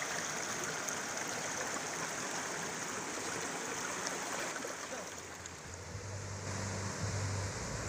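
River water rushing steadily over rocks in small rapids. About five seconds in the sound turns duller, and a low rumble comes in near the end.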